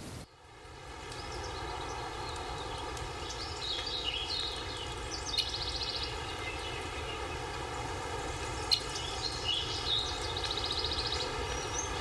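Outdoor ambience of a wood: a steady background hiss with small birds chirping and trilling, in two spells about four and nine seconds in.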